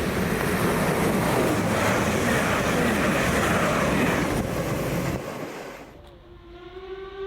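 A train running past on the rails, a loud rushing rumble of wheels and coaches that dies away about five seconds in. About six seconds in, a steady train whistle starts and holds.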